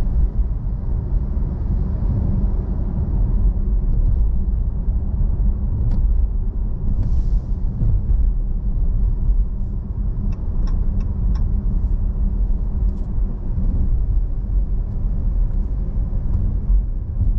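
Steady low rumble of a car driving slowly, tyre and engine noise heard from inside the cabin, with a few faint ticks about ten to eleven seconds in.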